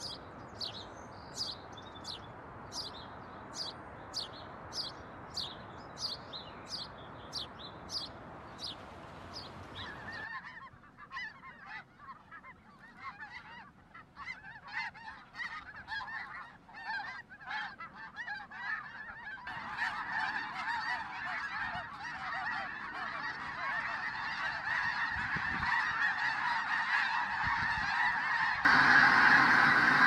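A house sparrow chirping, about one and a half chirps a second, for the first ten seconds. Then a flock of snow geese honking, many calls overlapping. The honking grows denser and becomes much louder near the end.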